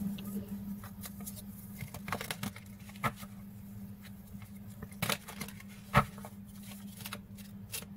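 Deck of oracle cards being shuffled by hand: faint, soft card-on-card rustling with a few sharper clicks about three, five and six seconds in, over a faint steady low hum.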